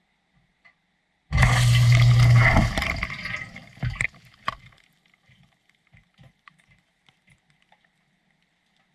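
A short gush of water with a low hum under it, starting about a second in and lasting about a second and a half, then trailing off into a few louder drips and faint scattered drips and ticks.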